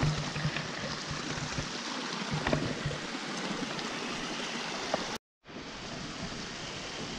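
Small mountain stream running and splashing over loose rocks, with a few sharp clicks of stones knocking underfoot in the first few seconds. The sound cuts out for a moment about five seconds in, then the water noise resumes.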